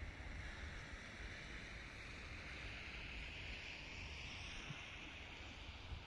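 Wind buffeting the microphone, a steady low rumble under an even outdoor hiss.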